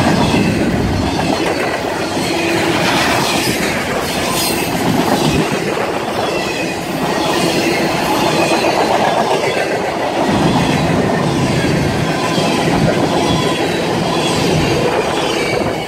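A freight train's container well cars and covered hopper cars rolling past, a steady loud rumble of steel wheels on rail. Wheels click over rail joints, with a faint thin squeal at times.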